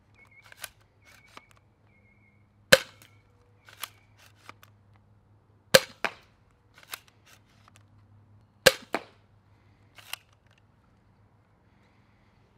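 ZWQ S200 Fire Rat spring-powered Nerf pistol, on its stock 1.6 spring, firing foam darts: three sharp shots about three seconds apart. Quieter clicks between the shots come from handling and re-cocking the blaster.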